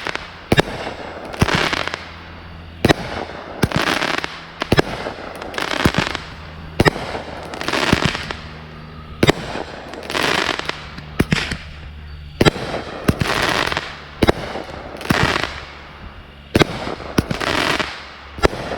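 Consumer fireworks going off in a steady series: each shot a sharp crack followed by a short crackling hiss, roughly one every two seconds.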